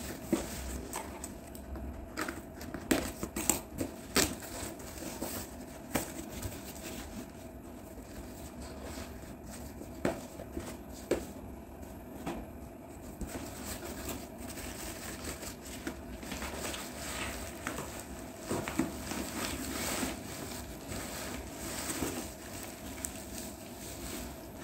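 Cardboard box packaging being handled and torn open by hand: flaps pulled back with rustling, scraping and tearing, and scattered short knocks as the cardboard is bent and moved. A faint steady hum runs underneath.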